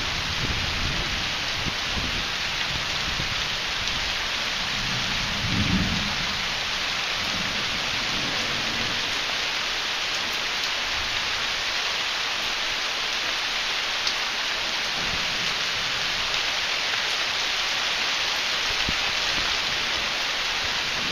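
Steady rain falling, with a low roll of thunder that swells and is loudest about five to six seconds in.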